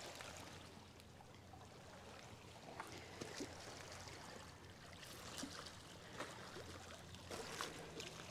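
Faint river water lapping at a rocky shore, with a few soft clicks and scrapes scattered through, like stones knocking underfoot.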